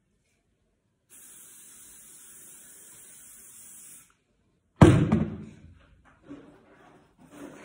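An aerosol spray can hissing steadily for about three seconds, as when hairspray is sprayed onto the hair. Then a single loud thump, followed by a few light knocks.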